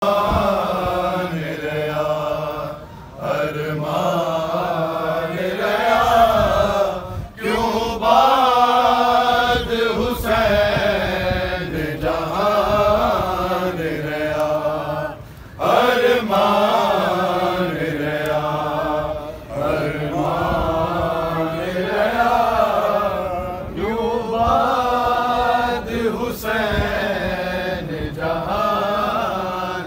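Men reciting a noha, a Shia lament for Imam Hussain, chanted in long rising and falling melodic phrases with short breaks between lines.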